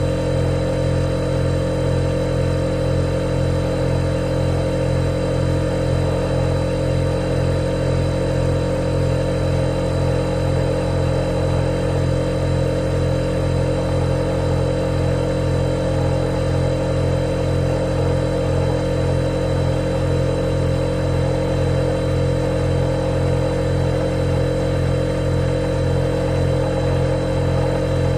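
Refrigerator running with a steady, unchanging hum made of several held tones, from its compressor and motor.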